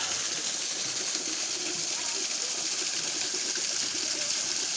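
Steady rush of running mountain stream water, with faint voices underneath.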